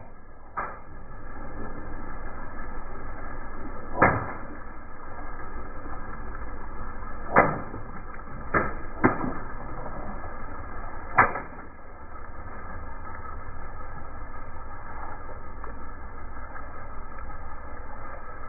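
Long twisting balloons bursting under a slowly rolling car tyre: six sharp pops spread over the first eleven seconds, the loudest about four, seven and eleven seconds in, over a steady low rumble.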